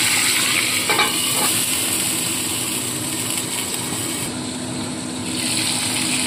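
Hilsa fish heads frying in hot mustard oil in an aluminium wok: a steady sizzle, with a light knock about a second in and a brief dip in the hiss about four seconds in.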